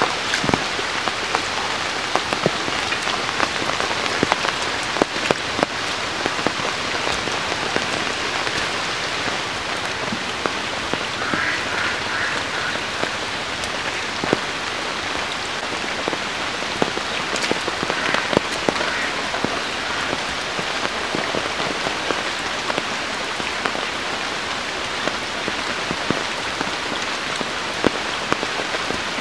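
Heavy rain falling on floodwater and waterlogged ground: a steady, dense patter of countless drops.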